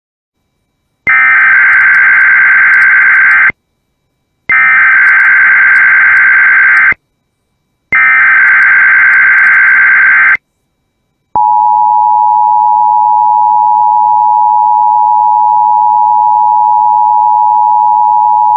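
Emergency Alert System header: three bursts of SAME digital data tones, a buzzy warble, each about two and a half seconds long with short gaps between. Then, about 11 seconds in, the steady two-tone EAS attention signal starts and holds, announcing that a National Weather Service alert message follows.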